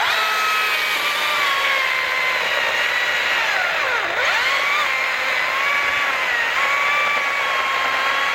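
STIHL battery-powered electric chainsaw cutting a log: a steady motor whine over the noise of the chain. About four seconds in the pitch drops sharply as the motor bogs down under load, then climbs back, which the owner puts down to the chain biting in harder than the motor's power allows.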